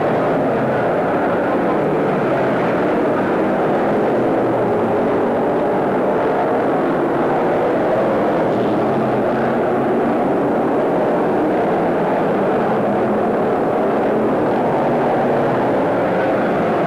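Race car engines of a field of stock cars running laps together, a loud steady drone with no letup.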